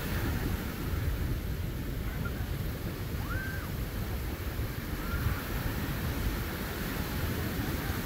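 Wind rumbling and buffeting on the microphone over the steady wash of ocean surf breaking on the beach. A faint, short, high call rises and falls about three seconds in.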